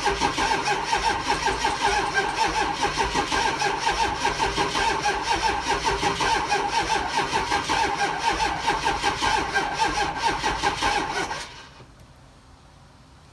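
Ford 6.0 Powerstroke V8 turbodiesel being cranked by its starter for about eleven seconds, a steady rhythmic chugging of compression strokes, without catching, then the cranking stops suddenly. A cold no-start.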